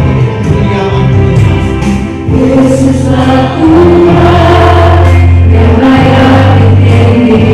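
Christian praise-and-worship song: voices singing over instrumental backing with sustained bass notes.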